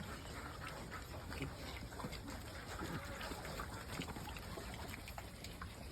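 Pigs feeding on wet feed: continuous wet slurping, splashing and chewing clicks, with a few short grunts.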